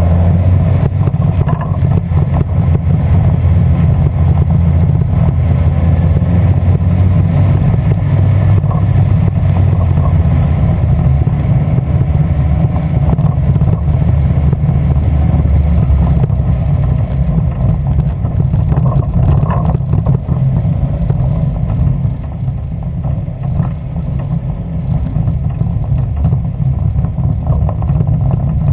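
Westfield's Ford Zetec four-cylinder engine running with a misfire, a loud steady low drone that eases a little in level about two-thirds of the way through.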